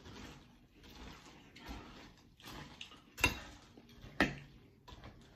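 Mouth-full chewing of crunchy Cap'n Crunch Berries cereal in milk, with a spoon clinking sharply twice against the glass bowl about three and four seconds in.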